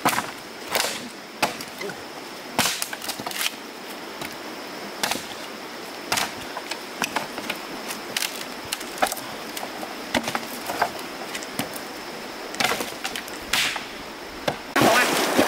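Hatchet chopping into a fallen wooden branch, sharp irregular blows about once a second. Near the end this gives way to rushing stream water and splashing.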